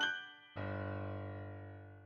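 Background music on a piano-like keyboard: the last note of a melody fades, then a low chord is struck about half a second in and rings, slowly fading away.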